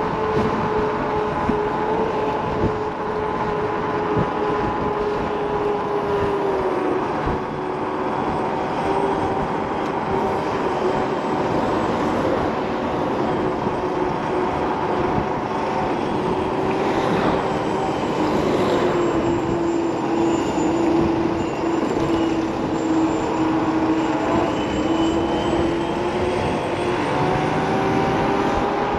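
Kaabo Wolf King GT electric scooter's dual hub motors whining under way, the pitch dipping and rising as the speed changes, over steady wind and road noise.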